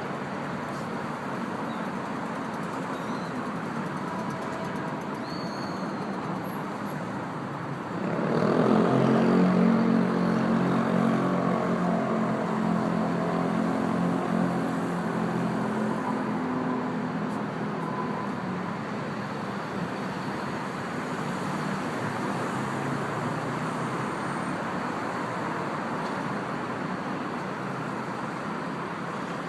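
A train passing over steady urban background noise: it comes up suddenly about eight seconds in, with a hum of several steady tones, and fades slowly over the next ten seconds.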